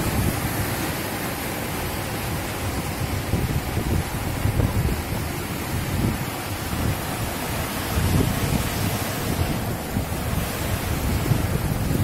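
Black Sea surf washing in over a sloping concrete shore: a steady rush of breaking waves, with gusty wind rumbling on the microphone.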